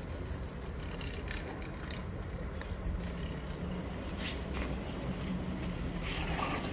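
Steady low rumble of city traffic, with scattered short crunches as a cat chews dry kibble.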